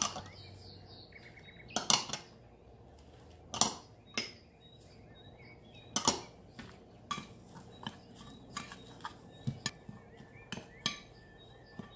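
Spoon and dishes clinking against a mixing bowl as dry spices are added: four sharp clinks a couple of seconds apart, then a run of lighter, quicker taps.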